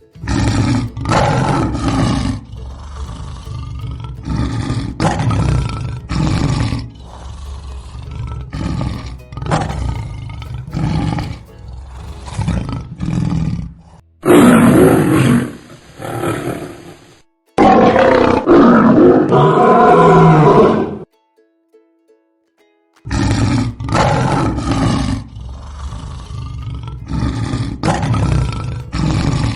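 Lion roaring: a run of short grunting roars at about one to two a second, then louder, longer full roars about halfway through. After a short silence, another run of grunts begins.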